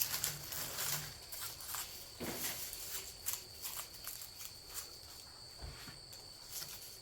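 Dry rustling and a string of irregular clicks and snips as cured garlic bulbs are handled and trimmed of their stems and roots, with papery skins and dirt dropping off.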